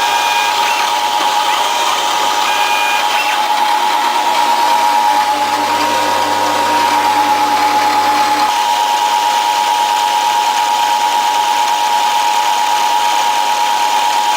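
CNC mill engraving a printed circuit board: the spindle runs steadily with a high whine while the stepper motors drive the axes. A lower hum from a feed move comes in about four seconds in and cuts off suddenly at about eight and a half seconds.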